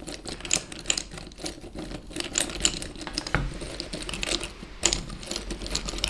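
Hand-cranked cherry-wood automaton mechanism clicking and clattering as the crank turns its gears, cams and cam followers: a rapid, irregular run of small wooden clicks.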